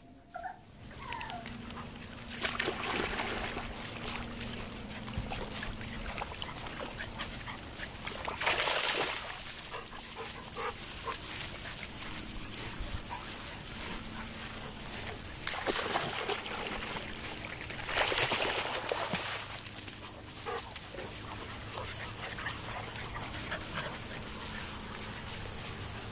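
Puppies whimpering faintly over a steady rush of wind noise on the microphone, with several louder gusts lasting about a second each.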